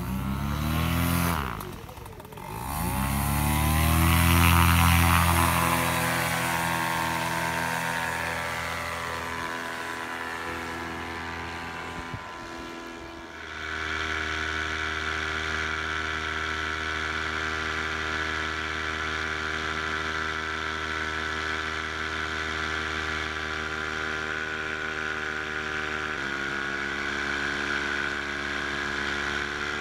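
Minari 180 paramotor engine revving up hard for takeoff, dipping briefly about two seconds in, then running near full throttle with its pitch slowly easing. After about thirteen seconds it changes abruptly to a steady in-flight engine note, which drops a little in pitch near the end.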